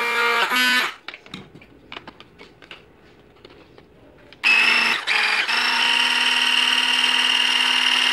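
Lenoxx 3-in-1 Turbo 600W hand blender motor running unloaded with a steady whine, cutting off about a second in. A few light clicks follow as an attachment is twisted onto the motor body. The motor starts again about four and a half seconds in, falters briefly, then runs steadily.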